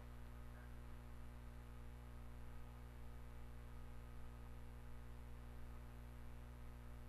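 Steady low electrical hum with a faint even hiss, otherwise quiet.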